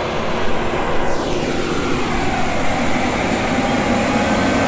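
New Holland T8.435 Blue Power tractor's Cursor 9 six-cylinder diesel working under ploughing load as the tractor drives past close by, with a steady engine drone. About a second in, a whine falls in pitch as it goes by, and the whole sound is more like an aeroplane.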